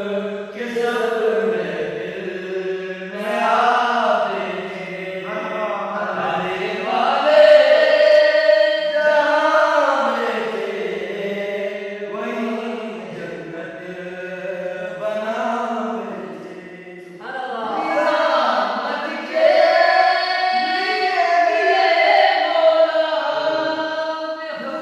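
Several men chanting a devotional manqabat together without instruments, in long held, wavering phrases that rise and fall.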